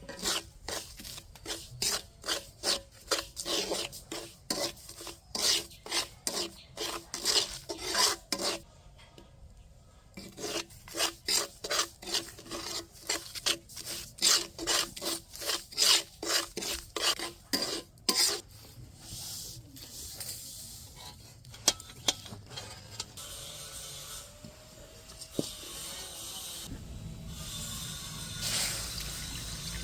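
A spatula scraping and stirring semolina in a cooking pan in quick regular strokes, about two a second. The strokes pause briefly, stop for good about two-thirds of the way through, and a softer steady rustle follows.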